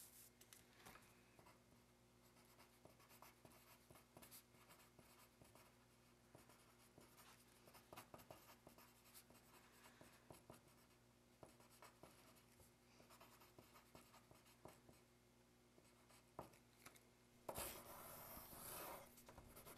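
Writing by hand on lined notebook paper: faint, quick scratching strokes of the writing tip, over a steady low hum. Near the end the scratching grows louder for a couple of seconds as a box is drawn around the words.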